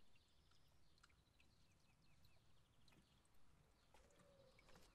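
Near silence, with faint short high chirps and a few soft clicks.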